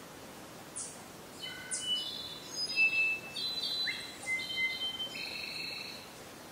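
A bird singing a varied phrase of high whistled notes and short downward-sweeping chirps, starting about a second in and ending shortly before the end, over a steady background hiss.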